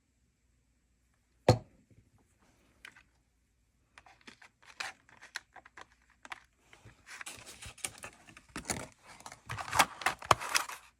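A single sharp knock about one and a half seconds in, then plastic packaging crinkling and tearing, growing busier and louder toward the end.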